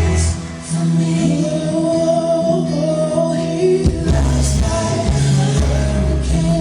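Contemporary worship song with a singer holding long, wordless notes over bass and guitar.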